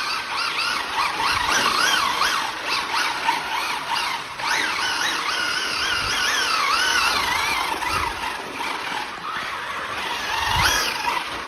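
Maverick Quantum R Flux 1/8 RC car's brushless electric motor whining, its pitch rising and falling over and over with the throttle, with a quick upward sweep about four seconds in.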